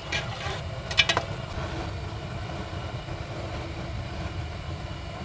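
A metal ladle scraping and knocking against a metal cooking pot while stirring thick jaggery-and-rice aravana payasam: a short scrape at the start, then a couple of sharp clinks about a second in. These sit over a steady low rumble.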